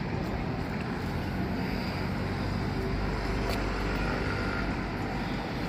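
Steady outdoor street background noise: a low, even rumble of traffic.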